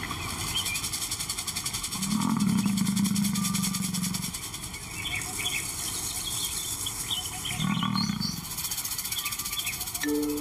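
Male lion giving two low, drawn-out calls, the first about two seconds long and a shorter one near the end, over a steady high-pitched buzzing background with a few bird chirps.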